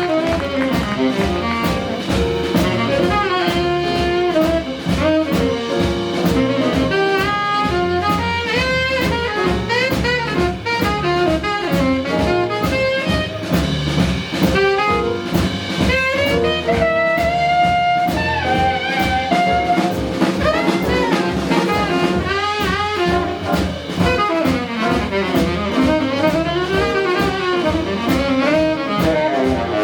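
Live jazz combo playing, a saxophone carrying the lead line in running, bending phrases over walking bass, piano and a drum kit keeping time on the cymbals.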